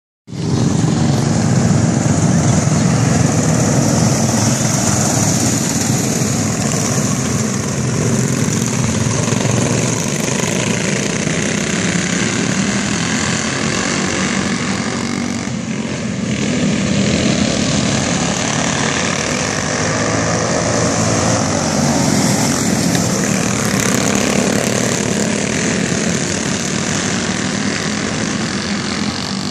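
Racing cars in the Modified Predator class, fitted with small modified Predator engines, running flat out around a dirt oval. Their engines make a steady, unbroken drone that swells and eases slightly as the field circulates.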